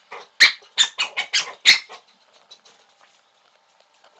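Black cocker spaniel barking for a beer can: a quick run of about seven high, sharp barks in under two seconds, then it stops.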